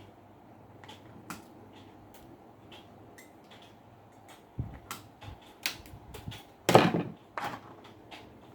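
Clicks and knocks of desk fan parts being handled and fitted back together. There are scattered light clicks at first, then louder knocks and clattering from about halfway in, with the loudest knock about two-thirds through.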